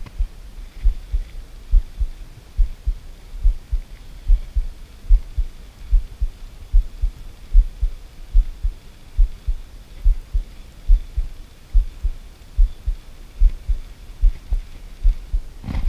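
Low, muffled thumps repeating unevenly, roughly one to two a second.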